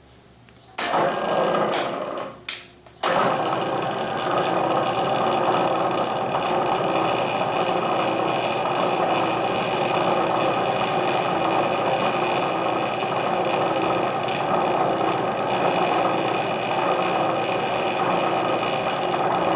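Electric drill running a 1/8-inch reamer in a port hole in a steel shotgun barrel, finishing the hole. It starts about a second in, stops briefly just before three seconds, then runs steadily.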